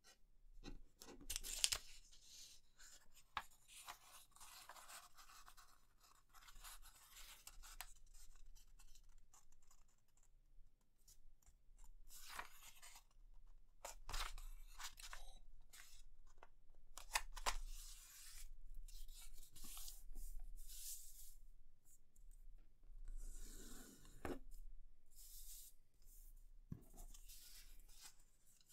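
A sheet of paper rustling and crinkling in irregular bursts as it is folded in half and creased by hand, with short sharper crackles as the folds are pressed down.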